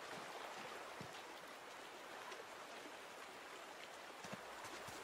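Faint, steady rush of a shallow river running over gravel.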